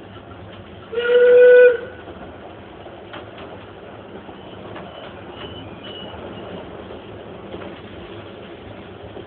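A steam locomotive's whistle gives one short blast lasting about a second, starting about a second in, over the steady running noise of the train carriage.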